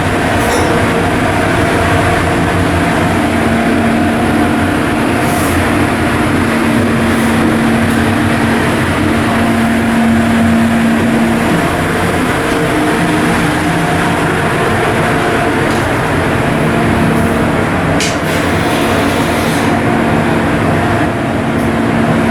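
Ship's diesel engine running steadily, a loud continuous drone with a hum that strengthens for several seconds at a time.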